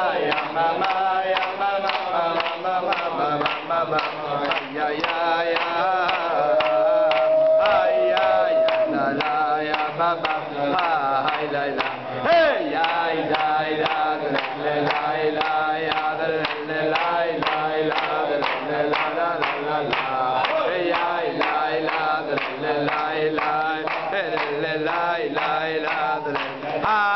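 A crowd of men singing a Hasidic song together, keeping time with steady rhythmic hand clapping.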